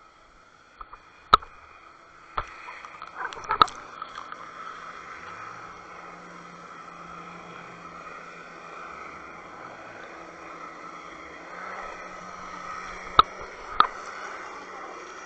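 Steady water rush picked up through an underwater camera housing as the fishing rig is drawn over the sea bottom, with a faint hum in it. A few sharp clicks or knocks come in the first few seconds, and two more near the end.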